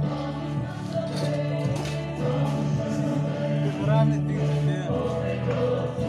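Music with a choir of voices singing, holding sustained notes.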